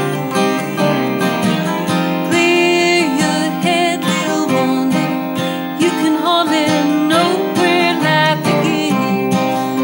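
Folk-pop song: acoustic guitar strumming, with a wavering melody line on top from about two seconds in.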